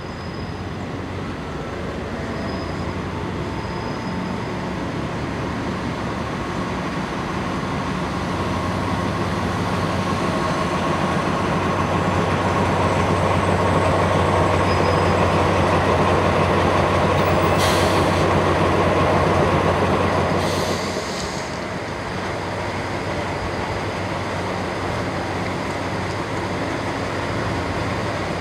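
Pielstick diesel engine of an Alsthom diesel-electric locomotive hauling a passenger train past at low speed. Its low drone grows louder as the locomotive approaches and drops off about three-quarters of the way through once it has gone by, leaving the carriages rolling past. There are two brief hisses as it passes.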